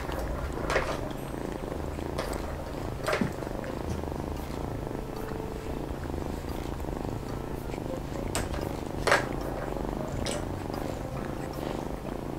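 Domestic cat purring steadily, with a few soft clicks over it.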